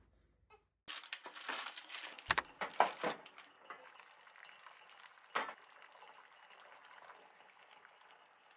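Water boiling hard in a saucepan, bubbling steadily, with a louder crackly stretch from about a second in. About five seconds in comes a single sharp clink from the pan's lid.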